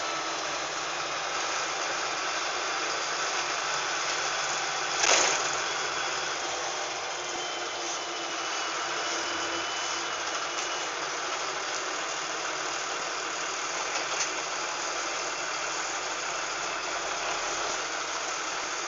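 LiAZ-5256.25 city bus's diesel engine running steadily, heard from inside the passenger cabin. A sharp knock sounds about five seconds in, and a lighter one about three-quarters of the way through.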